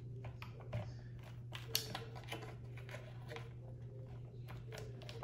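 Irregular light clicks, taps and rustling as electric-skateboard motor wires are handled and their connectors pushed together, over a steady low hum.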